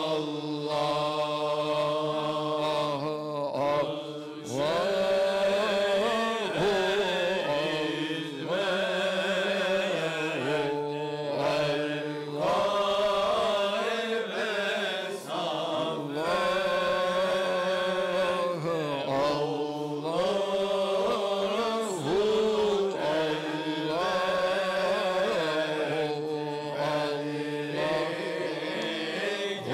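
Men's voices chanting a Sufi hymn (ilahi) together in the hicaz mode, in phrases with short breaths between them, over a steady low held drone.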